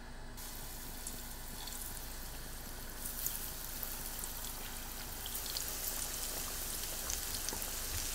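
Battered chicken pieces deep-frying in hot oil: a steady sizzle with scattered crackles that grow busier about three seconds in.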